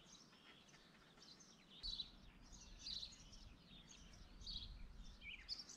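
Faint birdsong: small birds chirping and twittering over near-silence, busier after about two seconds, with a faint low rumble coming in at the same point.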